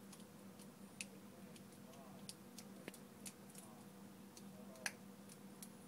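Faint, scattered little clicks and ticks of a precision screwdriver and tiny screws on an iPhone 4's metal frame as the corner screws are driven in, with one sharper click near the end. A steady electrical hum runs underneath.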